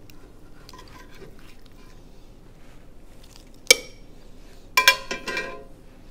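Metal tongs clinking against a slow cooker insert while a roast is set into it: one sharp clink nearly four seconds in, then a quick run of clinks about a second later.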